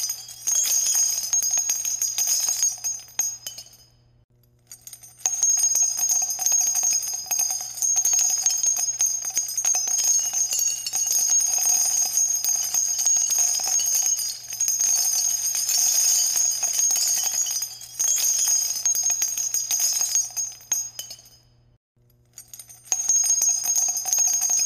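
Background music led by jingling bells, fading out twice for about a second and starting again, about four seconds in and about twenty-one seconds in.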